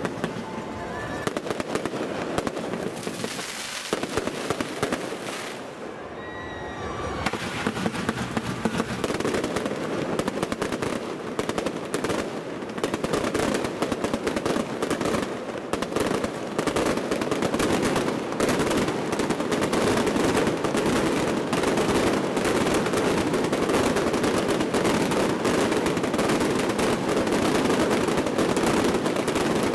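Fireworks shells bursting close overhead, with booms and crackles in quick succession. After the first several seconds they thicken into a dense, almost continuous barrage that grows louder toward the end.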